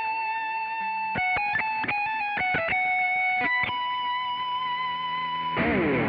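Electric guitar playing single-note lead lines: held notes with quick note changes in the middle, then a long sustained note. About five and a half seconds in it turns into a noisier, falling slide.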